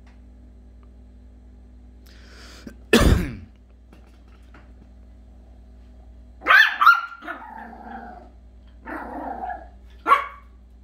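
Yorkshire terrier puppy barking in separate barks: a loud one about three seconds in, a cluster of several between six and eight seconds, and two more near the end. A steady low hum runs underneath.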